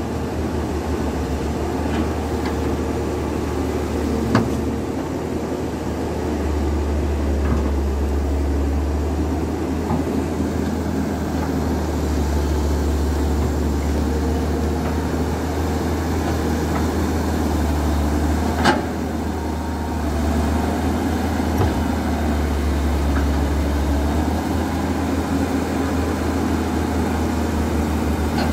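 Caterpillar E200B hydraulic excavator's diesel engine running with a steady low drone that swells slightly as the boom and arm work. A few sharp metal clanks, the loudest about two-thirds of the way through.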